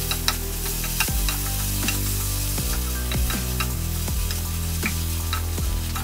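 Potatoes and onion in a spice masala sizzling in oil in a pan while being stirred, with scattered clicks of the utensil against the pan. Soft background music with held low chords plays underneath.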